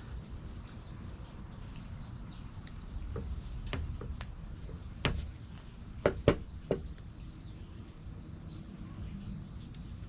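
A few sharp metallic clicks from a DeWalt multi-tool being handled, the loudest between about five and seven seconds in. Behind them a bird chirps steadily, a short high chirp about once a second.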